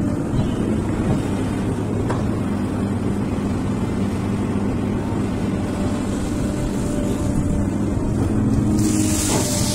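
XCMG XE215C hydraulic excavator's diesel engine running steadily under load as the boom and bucket work, with a rush of hiss rising near the end.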